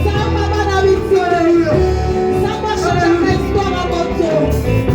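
Church worship music: singing over instrumental accompaniment with a steady bass line.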